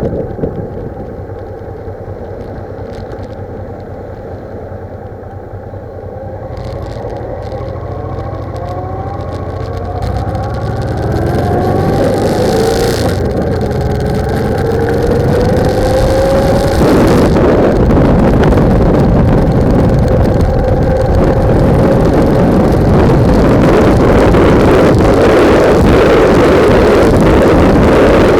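Motorcycle engine accelerating, its pitch rising several times through the gears, while wind buffeting the bike-mounted microphone grows steadily louder with speed until it covers most of the sound.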